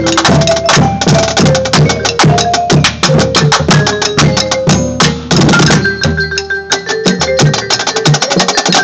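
Marching drumline playing a cadence: rapid snare drum stick strokes over tuned marching bass drums sounding short pitched notes in turn.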